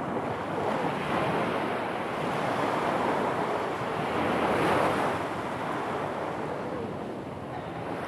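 Small sea waves breaking and washing in over a pebble beach, swelling and easing as each wave comes in, with wind buffeting the microphone.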